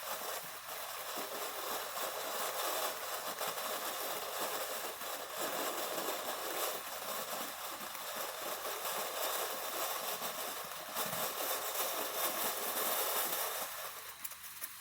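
Phantom Fireworks Falling Star Fountain, a ground fountain firework, spraying sparks with a steady hiss that eases off near the end.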